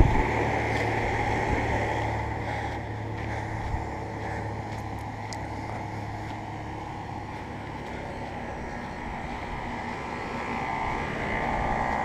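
Outdoor heat pump units running in heat mode: a steady fan whoosh with a low compressor hum, which grows fainter after about seven seconds.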